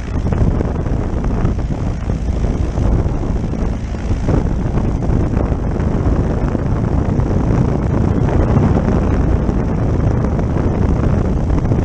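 Ultralight aircraft's two-cylinder opposed engine running steadily close up, with its propeller turning as the plane taxis on skis.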